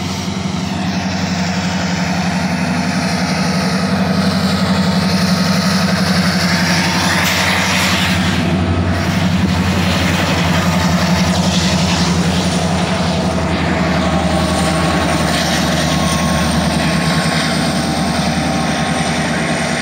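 Diesel freight locomotives passing underneath, their engines droning loud and steady, with a louder rush of noise as the lead units go directly below about seven seconds in.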